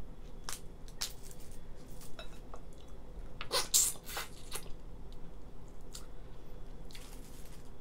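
Boiled lobster being eaten by hand: scattered small cracks and wet squelches as the shell is pulled apart, with a louder run of sucking noises about halfway through as meat is sucked from a leg.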